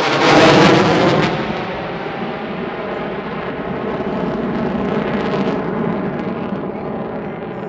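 F-22 Raptor jet passing, its twin Pratt & Whitney F119 turbofans giving a heavy, rumbling roar. It is loudest about half a second in, holds steady, then fades near the end.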